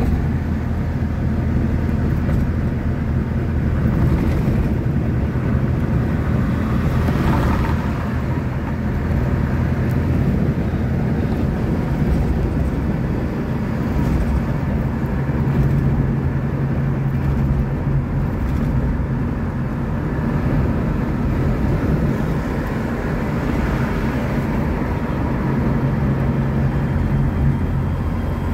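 Steady engine and road noise from inside a moving vehicle's cabin, a constant low rumble with an engine hum that comes up now and then.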